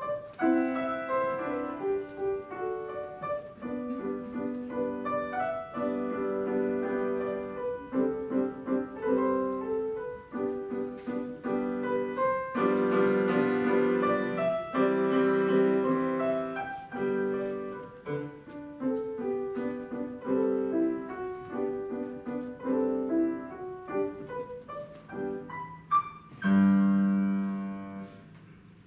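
Grand piano played solo: a classical piece of many quick notes and chords, closing near the end on a loud final chord that rings and dies away.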